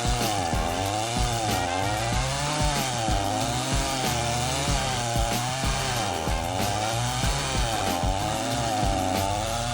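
Two-stroke Stihl chainsaw driving a stump-grinding cutter attachment, grinding into a tree stump. The engine runs hard, its pitch dipping and climbing back about once a second as the cutter bites into the wood.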